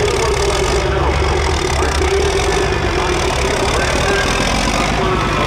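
John Deere 4455 tractor's six-cylinder turbo diesel running hard under load as it pulls a weight-transfer sled: a loud, steady engine drone.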